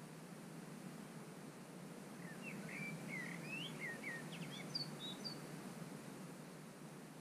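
A songbird sings one short phrase of quick, varied chirping notes that ends on a few higher notes. It starts a little over two seconds in and lasts about three seconds, over a steady low background rumble.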